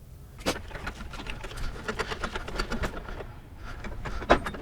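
A pickup's fuel tank being worked up into place under the truck: a busy run of small clicks, rattles and scrapes, with a sharper knock about half a second in and another near the end.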